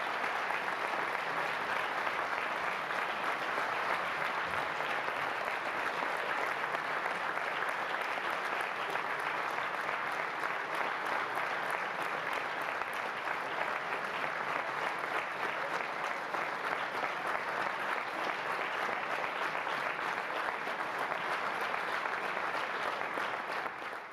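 Audience applauding steadily in a concert hall, fading out at the end.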